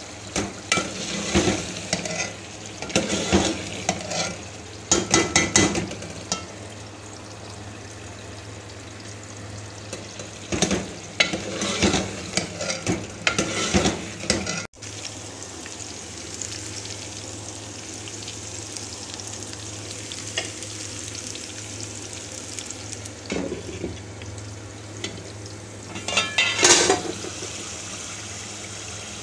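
A metal spoon stirring and scraping through aloo keema (potato and minced mutton curry) in a cooking pot, with the curry sizzling. The stirring comes in three bouts with a quieter stretch in the middle, over a steady low hum.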